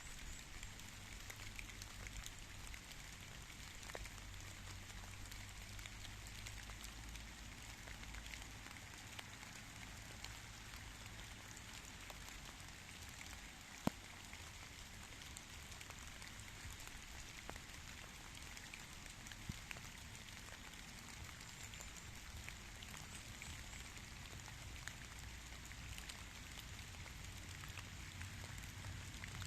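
Steady light rain falling, with many small individual drops ticking through it. One sharper tap comes about halfway through.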